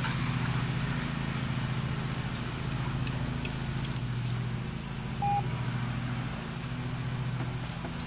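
A steady low motor hum, with a short high electronic beep about five seconds in.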